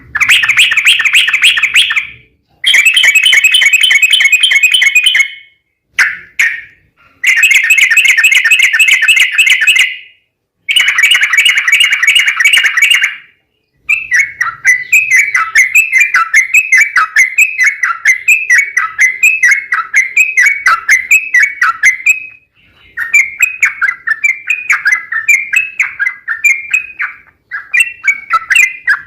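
Yellow-vented bulbul (trucukan) song: rapid, chattering 'ropel' phrases in several loud bursts of two to three seconds with short breaks, then from about halfway through a longer unbroken run of quick repeated notes, a couple to the second.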